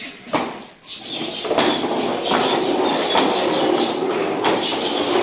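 Hard plastic wheels of a child's ride-on toy rolling over a ceramic-tiled floor: a continuous rattling rumble with small knocks, dipping briefly under a second in.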